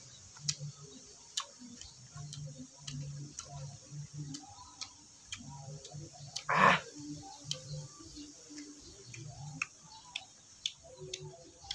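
Brittle shells of dry tamarind pods cracking and being peeled apart by hand, giving irregular sharp clicks about once a second and one louder crunch about six and a half seconds in.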